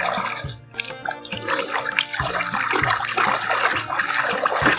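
Water running and splashing as a mud-covered toy hippo is rinsed clean, under background music with a steady beat.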